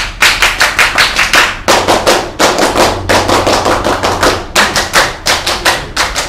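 A group of Indonesian scouts clapping in unison, a fast patterned group clap of about five claps a second broken by short pauses between phrases.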